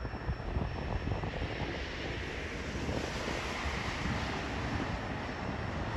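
Freight train of autorack cars rolling away down the track: a steady rumble of steel wheels on the rails, with light clatter.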